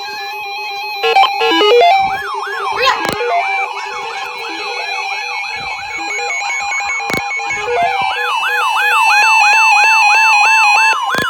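Emergency alert tone ahead of a weather warning: a siren-like wail sweeping up and down about twice a second, starting about two seconds in, with a steady tone near 1 kHz, like the NWS 1050 Hz warning alarm, strongest in the second half. Electronic music with stepping notes plays underneath.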